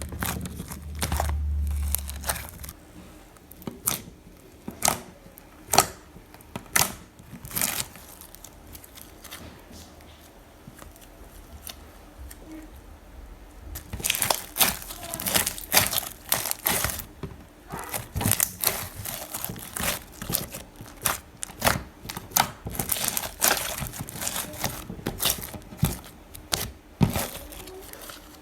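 Slime being squeezed and poked by hand, giving sharp clicks and crackles of popping air pockets. The clicks are scattered at first, thin out, then come thick and fast from about halfway. A low rumble sits under the first couple of seconds.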